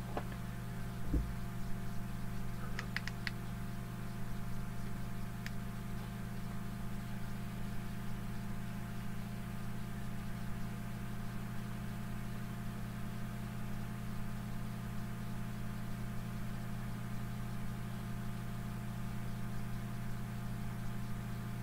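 Steady low electrical hum with even background hiss, and a few faint clicks about one, three and five seconds in.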